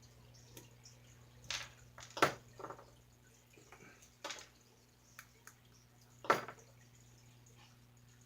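Small parts of a toy RC snowmobile being handled: a handful of separate light clicks and knocks, two sharper than the rest, over a steady low hum.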